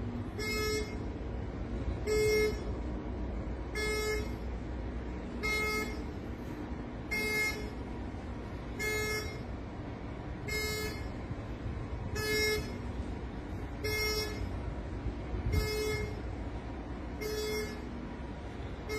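Ship's alarm sounding in short pitched pulses, about one every 1.7 seconds, over a steady low rumble.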